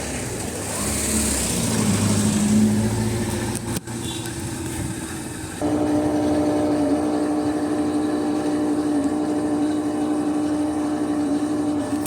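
Electrolux LTD11 washing machine drain pump running noisily, the fault for which it is being replaced. An uneven whir in the first half gives way about five and a half seconds in to a sudden, steady hum with one strong pitched tone.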